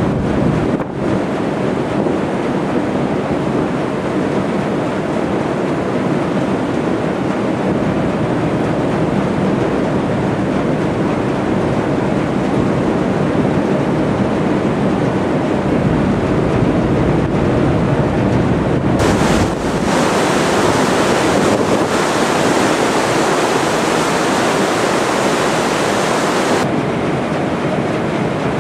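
Steady rush of wind buffeting the microphone mixed with rushing water, recorded aboard a moving river boat. The hiss grows brighter about two-thirds of the way through and eases again near the end.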